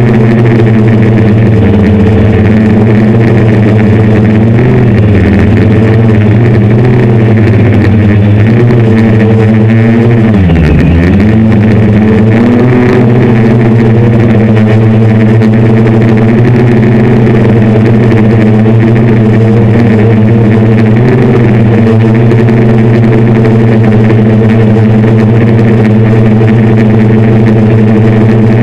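Hexacopter's six 750Kv brushless motors spinning 10-inch propellers, heard from the onboard camera as a loud, steady multi-tone drone. About ten seconds in, the pitch drops sharply and climbs back within a couple of seconds as the motors slow and spin up again.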